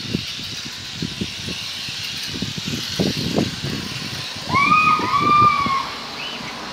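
JXD 806 toy RC motorbike's small electric motor whirring as it drives over floor tiles, over a run of soft low thumps. About four and a half seconds in, two loud rising-and-falling cries stand out, one right after the other.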